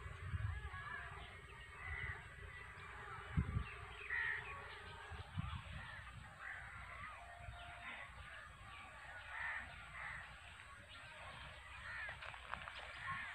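Crows cawing, one short call every couple of seconds, with a few low thumps in the first few seconds.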